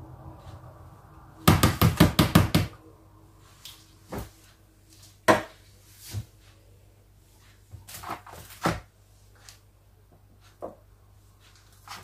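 A quick run of about eight sharp knocks, some seven a second, about a second and a half in, followed by scattered single knocks and clatters.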